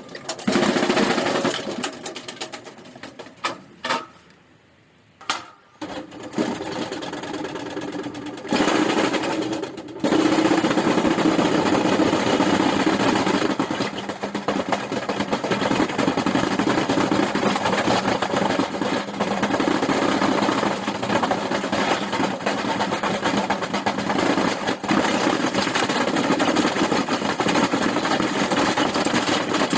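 Washing machine on a violent spin, rattling and banging rapidly as it shakes itself apart. The noise cuts out briefly about four seconds in, then builds and runs on loud and steady from about ten seconds.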